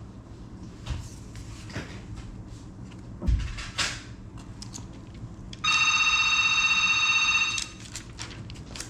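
Light clicks and knocks of small parts and tools being handled, with a heavier knock about three seconds in. Then a loud, steady, high electronic ringing tone runs for about two seconds.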